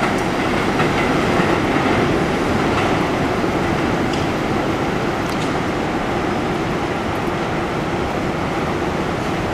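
New York City Subway 1 train of R62A cars running along the elevated steel viaduct: a steady rumble with a few faint wheel clicks.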